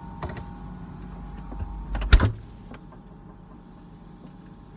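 Refrigerator door swung shut with one loud thud about two seconds in, heard from inside the fridge; after it the fridge's steady hum carries on, quieter and duller with the door closed.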